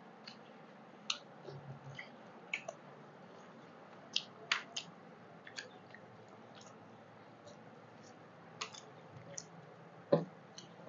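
Hand-eating sounds: irregular short wet clicks and smacks of chewing and of fingers mixing rice and curry on steel plates, with a louder knock about ten seconds in.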